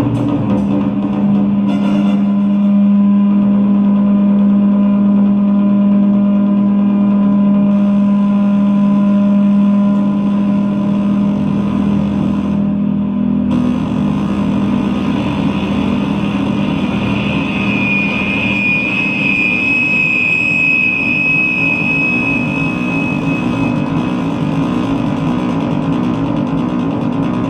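Live industrial noise music: a loud, rough electronic drone with a strong steady low hum that fades about halfway through. A high, steady whistling tone enters in the second half and drops out again a few seconds before the end.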